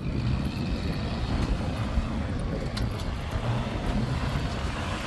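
A vehicle engine running with a steady low rumble, with one faint tick about three seconds in.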